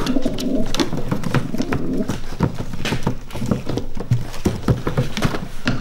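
Irregular light taps and knocks on wooden pigeon baskets, with pigeons shuffling inside and a sheet of paper being handled.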